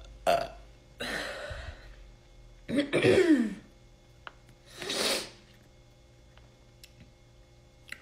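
A woman's deliberate burp, done on request, tails off right at the start, followed by breathing and a short burp with falling pitch about three seconds in.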